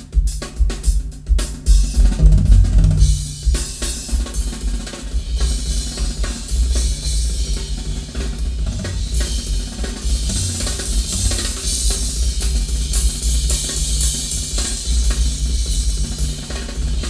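A drum-kit percussion track played through a Sansui QRX-7500 receiver and speakers. Heavy bass drum, snare and rimshot hits come sharply at first, and cymbals wash over them from about five seconds in.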